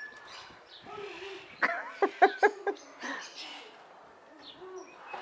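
Macaw giving a quick run of about five short, harsh calls about one and a half seconds in.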